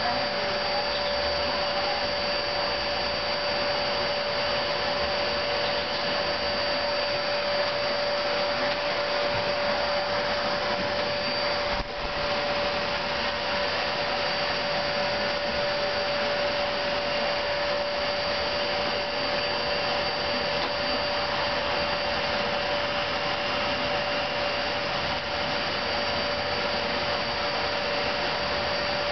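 Vacuum cleaner running steadily, a continuous rushing noise with a steady whine, briefly dipping about twelve seconds in.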